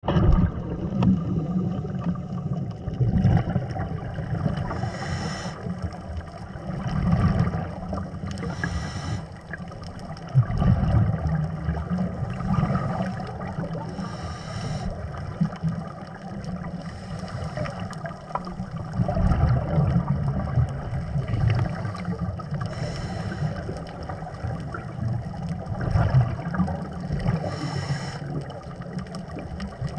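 Water noise, a muffled low rumble, with a short hiss about every four to five seconds.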